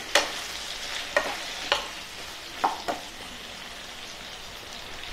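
Brinjal and potato pieces sizzling in oil in a kadhai as a wooden spatula stirs them, with a few short scrapes and knocks of the spatula against the pan in the first three seconds; after that only the steady sizzle.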